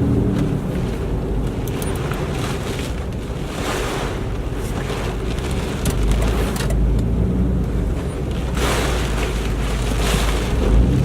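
Hurricane-force wind rushing in repeated gusts and buffeting the microphone with a heavy low rumble, with a few faint clicks.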